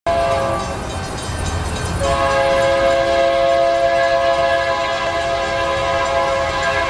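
Locomotive air horn sounding a short blast, then a long steady blast from about two seconds in, a chord of several pitches, over the low rumble of the approaching train.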